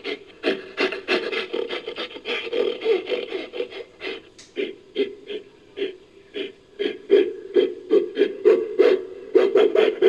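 Made-up creature call for the extinct giant lemur Megaladapis, pieced together from gorilla and bear recordings: a long series of short, raspy pulses that come faster near the end.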